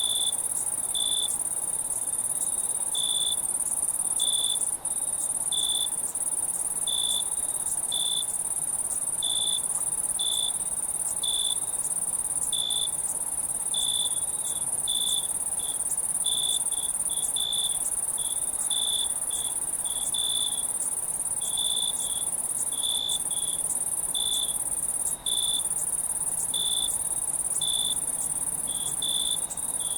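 Night crickets chirping: a steady high-pitched trill, with a louder, lower chirp repeating about once a second, sometimes in quicker runs.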